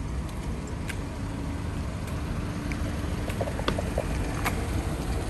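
Street traffic hum: a steady low rumble of idling and passing vehicles, with a faint steady drone through the middle and a few scattered light clicks.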